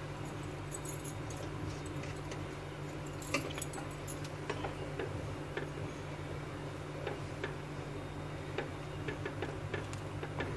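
Wooden spatula stirring thick kheer in a non-stick pan, making scattered light clicks and taps against the pan from a few seconds in, over a steady low hum.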